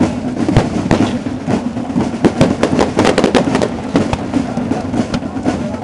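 Firework display: a rapid, irregular string of bangs and crackles, thickest in the middle.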